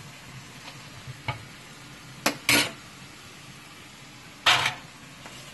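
Metal spatula and fork clinking and clattering as they are handled and set down on the stove and in a foil pie pan: two sharp clinks a little past two seconds in, and a longer, louder clatter near the end. Underneath is a faint steady sizzle of steak frying in a cast-iron skillet.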